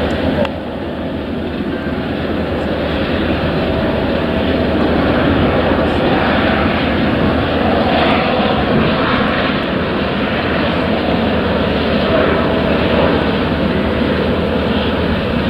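Jet engine noise from a three-engine Dassault Falcon business jet on final approach and landing, a steady rushing sound that slowly grows louder as the jet comes closer.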